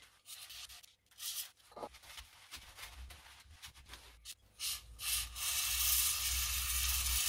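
Hand scrubbing of a rusty rear wheel hub face, cleaning off corrosion: a few short scrapes and knocks at first, then steady rubbing from about five seconds in.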